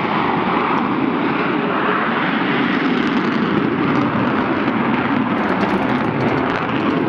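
Jet noise from an F-14 Tomcat's twin engines as it flies the carrier break to land: a loud, steady rushing sound with no break.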